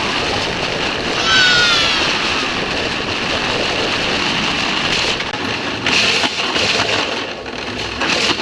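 Shopping cart being pushed across a parking lot, its wheels rattling over the pavement. A brief high squeal comes about a second in, and short clattering knocks come from about five seconds on.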